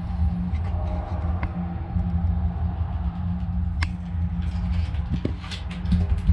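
An engine running steadily with a low drone, joined by a few light clicks and taps of hand tools about four seconds in and near the end.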